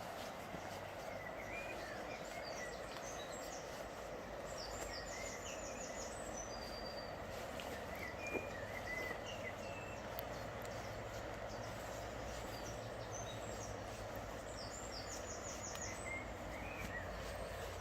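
Steady rush of flowing river water with a low rumble underneath, and songbirds singing over it: short chirps throughout and a trilled song phrase twice, about ten seconds apart.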